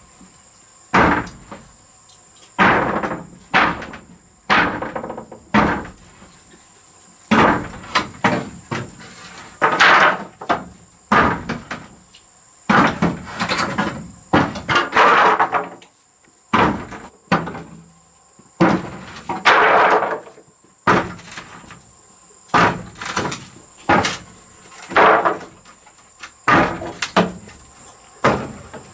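Irregular knocks, bangs and scraping from hands-on repair work, about one every second, some short and sharp, some longer and rasping, over a steady high insect buzz.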